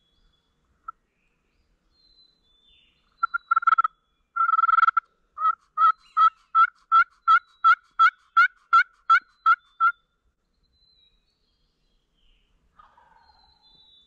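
Hunter's turkey call imitating a hen: a few short notes, then a steady run of about a dozen evenly spaced yelps, roughly three a second, loud and close, sent out to draw a gobbler in.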